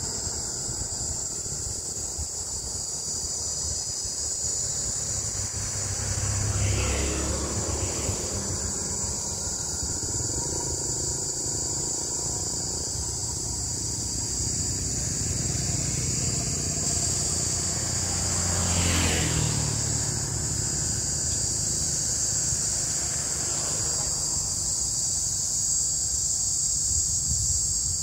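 Cicadas singing in a continuous high-pitched buzz; the recordist says the call sounds like a green cicada's. Two vehicles drive past, one about seven seconds in and a louder one around nineteen seconds.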